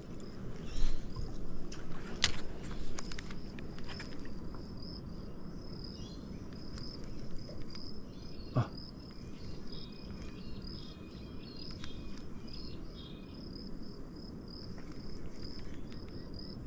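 Insects chirring in a steady, high, pulsing trill, joined by a second, lower chirping through the middle. There are a few light clicks, and one knock about halfway through.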